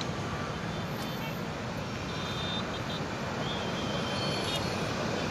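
Steady road traffic noise, with no single event standing out.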